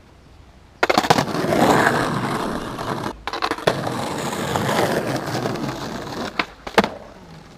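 Skateboard wheels rolling on rough concrete close to a ground-level microphone, starting suddenly about a second in, then two sharp cracks near the end as the tail pops and the board slaps back down on a flip attempt.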